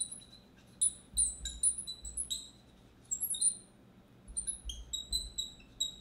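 Felt-tip marker squeaking on a glass lightboard as words are written, a run of short high squeaks in several bursts with brief pauses between strokes.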